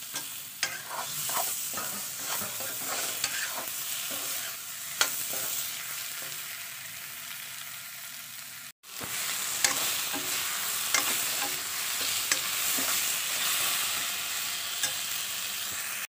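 Climbing perch and tomato masala sizzling in hot oil in a kadai, with a metal spatula scraping and tapping against the pan as it is stirred. The sound breaks off completely for a moment a little past halfway.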